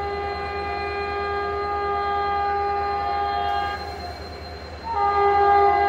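Indian Railways WAP-7 electric locomotive's horn sounding a long, steady blast, breaking off about four seconds in and sounding again a second later.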